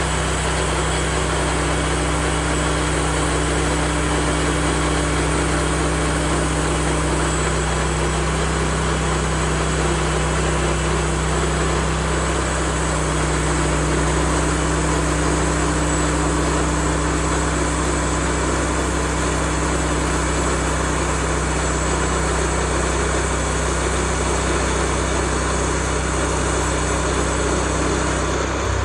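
The gas engine of a Woodland Mills HM136MAX portable bandsaw mill running steadily at a constant speed.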